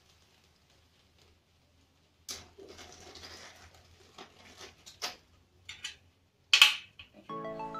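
After about two seconds of near silence, aluminium rack pieces and small fittings are handled by hand, giving light rustles and irregular clicks and clinks, with one sharper clack about two-thirds of the way through. Background music comes in near the end.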